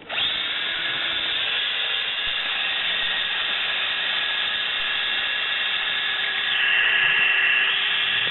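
Power tool running steadily with a high-pitched whine, cutting or drilling into a small digital camera's body. It gets louder about six and a half seconds in, as if bearing down harder, and eases back near the end.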